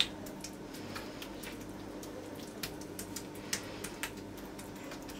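Fingers pressing and spreading raw minced-meat lahmacun topping over a thin yufka round: faint soft squishes and small taps, over a low steady hum.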